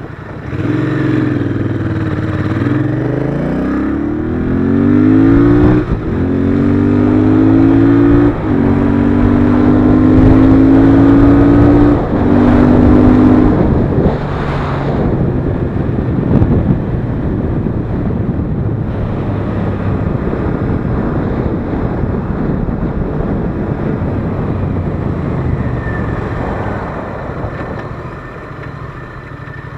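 Royal Enfield Interceptor 650's 648 cc parallel-twin engine accelerating hard up through the gears. The pitch rises and breaks at three upshifts, about 6, 8.5 and 12 seconds in. After about 14 seconds it settles into steady running off the hard throttle, easing off near the end.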